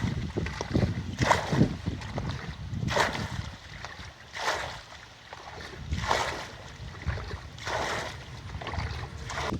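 Water splashing in regular strokes, about one every second and a half, with wind rumbling on the microphone.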